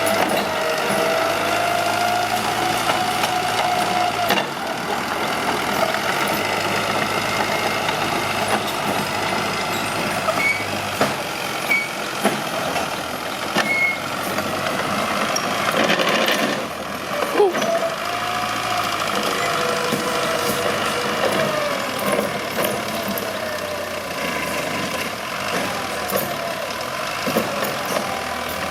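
Mitsubishi BD2H crawler bulldozer's diesel engine working as it pushes trees, its pitch drifting up and down as the load changes. Scattered knocks and clanks are heard throughout, with a brief louder surge about two-thirds of the way through.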